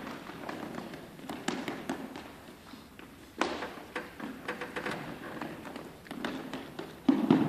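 Scattered shoe taps and footsteps on a hardwood gym floor, echoing, with a louder cluster of steps near the end.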